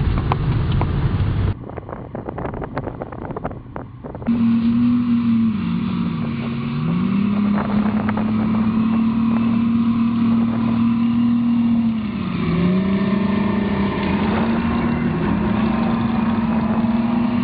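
Engines of M113 armored personnel carriers driving cross-country: a loud, steady drone whose pitch drops and climbs back up twice. A quieter stretch with scattered clicks comes between about 1.5 and 4 seconds in.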